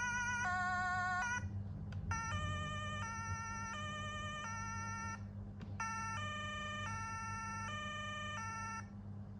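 Standby Group MCS-32 electronic siren sounding a two-tone, stepping back and forth between a high and a low note. About a second and a half in, the pattern breaks off. After a short pause a different two-note pattern starts, with a slight warble on the notes, and it stops shortly before the end. A steady low hum runs underneath.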